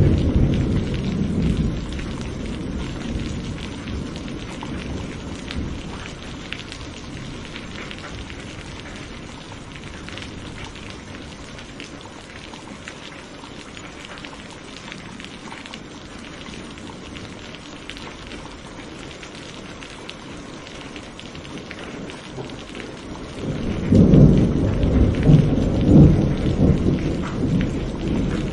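Steady rain with thunder: a low rumble dies away over the first couple of seconds, then a new loud, rolling rumble of thunder breaks in near the end.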